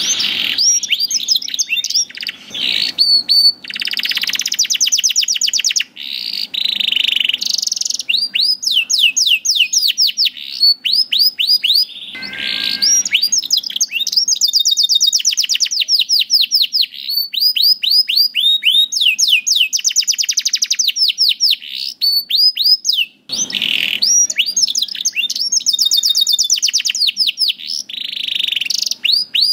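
Domestic canary singing continuously and loudly: long runs of rapid repeated notes that sweep downward, each run at a different pace, with only brief pauses between phrases.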